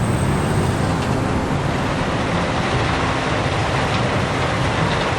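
Steady, loud rumbling vehicle ambience, an even wash of engine and road or rail noise with no distinct events.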